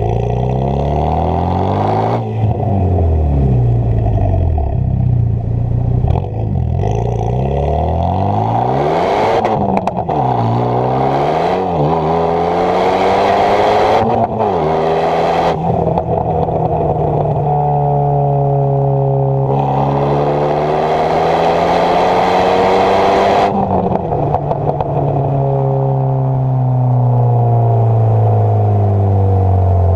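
Exhaust of a Renault Megane 225's turbocharged 2.0 four-cylinder, decatted and running a stainless system with a centre silencer and no back box, under hard acceleration: the note climbs through the revs and drops sharply at each gear change, holds steadier for a stretch, then falls away near the end as the car slows, with crackles as the throttle is lifted.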